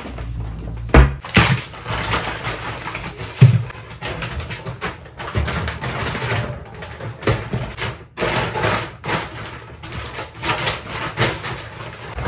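Objects being handled and set down: a series of knocks and thuds, the loudest about a second in and again about three and a half seconds in, with rustling between them.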